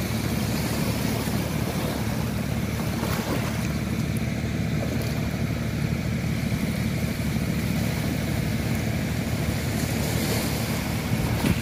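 Steady low rumble of wind on the microphone, with small waves washing at the water's edge.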